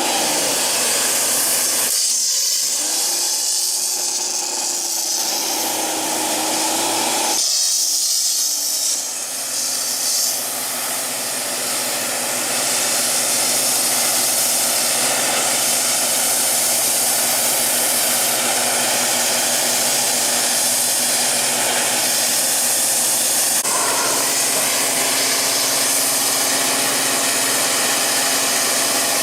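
Kärcher pressure washer running: the steady hiss of the high-pressure water jet over the hum of the pump motor, changing in tone a few times.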